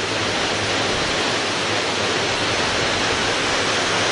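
Steady rushing of water pouring through the dam at Lock 9, an even roar with a faint low hum underneath.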